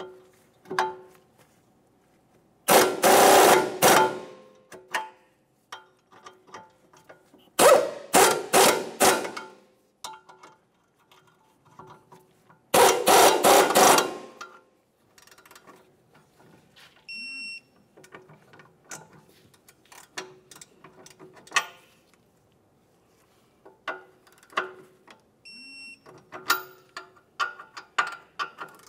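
A power ratchet runs down the ball-joint-to-lower-control-arm nuts in three bursts of about a second and a half each, spaced roughly five seconds apart. Between and after the bursts come light metallic clicks and clinks of sockets, tools and hardware.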